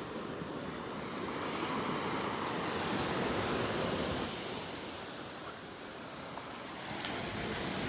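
Small ocean waves breaking and washing up a sandy beach: a steady rush of surf that swells, eases a little about two-thirds of the way through, then builds again.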